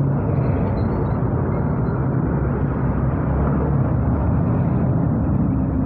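Motorcycle engine running at low speed in slow traffic, with steady road noise, picked up by an earphone microphone; the engine hum drops lower about two seconds in.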